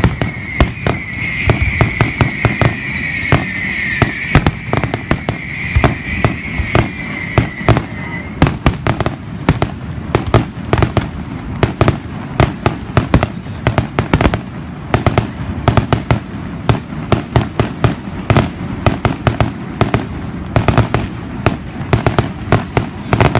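Fireworks going off in a rapid, irregular run of sharp bangs and cracks, several a second. Over the first eight seconds or so a steady high hissing whistle runs beneath the bangs, then cuts off.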